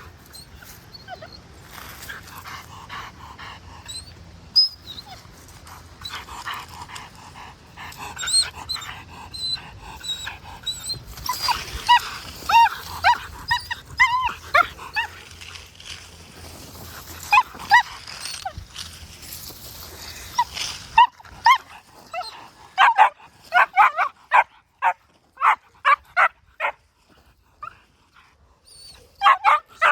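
Czech Shepherd working dog whining and yelping in short, high, bending cries, then, about two-thirds of the way through, breaking into rapid barking at about two barks a second.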